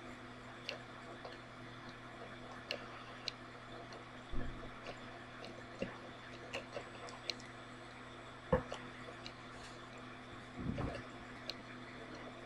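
Quiet room tone with a faint steady hum and scattered small clicks, and a few louder soft knocks about a third of the way in, about two-thirds in and near the end.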